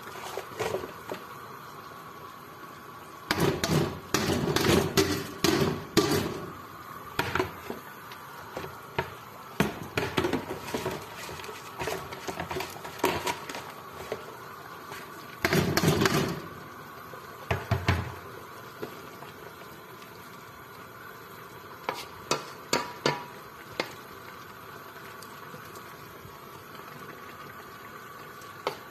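Wooden spatula stirring rice into chicken broth in an aluminium pot, knocking and scraping against the pot in several short bursts over a steady background hum.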